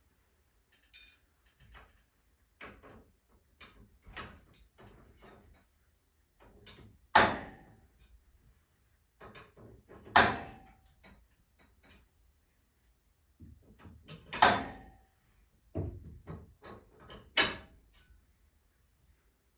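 Metal clanks and knocks from garage door torsion spring hardware being worked by hand: four loud, sharp strikes a few seconds apart, each with a short metallic ring, among lighter clicks and taps.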